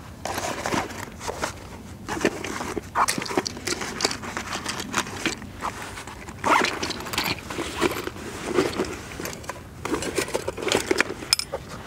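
Handling noise of kit being packed into a waxed canvas haversack: an irregular run of rustling, scraping and small knocks as canvas and nylon pouches and tools are moved and pushed in, with a pouch zip drawn shut near the start.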